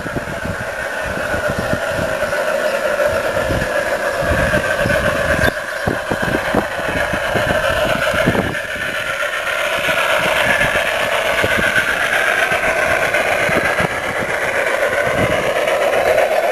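USAT 1:29-scale Big Boy model steam locomotive and its passenger cars rolling along the garden-railway track, a steady whirring rumble of wheels and drive that grows louder as the train comes close. Wind buffets the microphone in irregular gusts.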